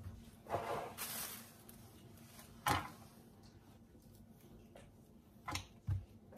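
Kitchen handling sounds: a rustle about half a second in, a sharp knock near the middle, and two dull knocks near the end as a knife and a cucumber meet a plastic cutting board.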